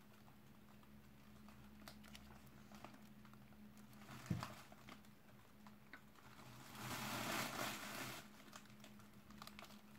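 Plastic snack wrapper crinkling in the hands, faint at first, then louder for about a second and a half about seven seconds in. There is a single dull thump about four seconds in, and a faint steady hum throughout.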